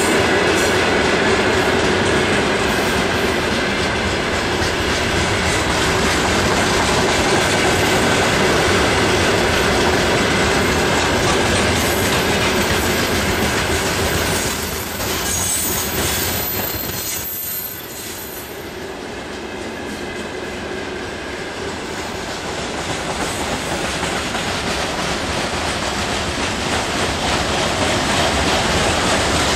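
Freight train rolling past at close range: wagon wheels clattering over the rail joints in a continuous din, with a thin high wheel squeal in the middle. The noise eases briefly a little past halfway, then builds again.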